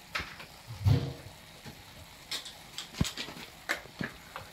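Scattered clicks and knocks of a spoon against the pan and spice container as turmeric is added to chicken mince frying in the pan, with a low thump about a second in and a faint frying sizzle underneath.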